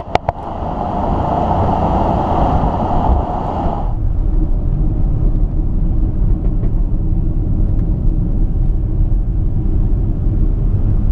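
2018 BMW X3 M40i's turbocharged 3.0-litre inline-six on the move, a steady low rumble with road noise. A few quick sharp cracks come right at the start, and the higher-pitched part of the sound drops away about four seconds in.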